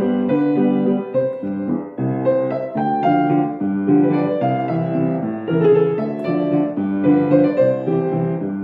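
Grand piano played with both hands: chords held under a melody line, the notes changing every half second or so.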